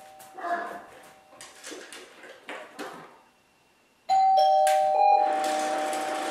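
Electronic doorbell chiming a two-note ding-dong, starting suddenly about four seconds in, with a dog barking alongside it about a second later. Before it come softer scattered sounds as an earlier chime dies away.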